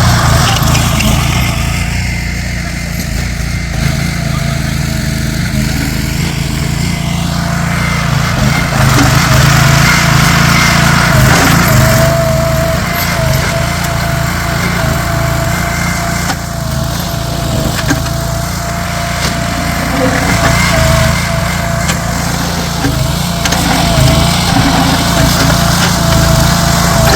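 Small engine running steadily, with a thin steady whine that comes in about twelve seconds in.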